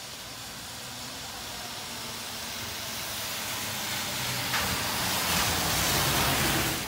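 City bus approaching and passing close by on a wet road: the hiss of its tyres on the wet asphalt grows steadily louder, with the low hum of its engine, and is loudest in the last two seconds as the bus goes past.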